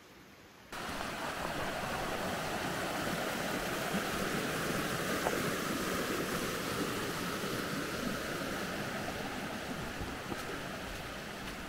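A rocky mountain creek rushing steadily over stones, a loud even rushing that cuts in suddenly under a second in.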